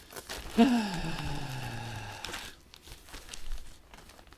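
Crinkling and rustling of vintage paper and plastic chip bags being handled. About half a second in, a low hum slides down in pitch for about a second and a half. The rustle dies away after about two and a half seconds, leaving a few faint ticks.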